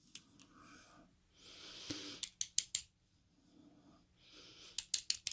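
Small sharp metallic clicks of tweezers picking tiny pins and springs out of a Brinks 642 padlock's pin chambers, coming in two quick clusters: about four clicks around two seconds in and a longer run near the end.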